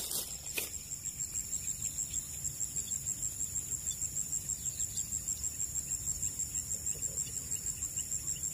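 Insects chirping in a swamp, a steady high-pitched trill that pulses about four to five times a second. A single short click sounds just after the start.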